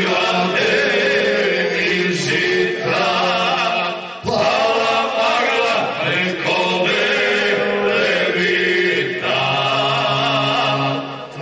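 Male vocal group singing a Krajina-style folk song in long held notes with a wavering pitch, with a short break about four seconds in.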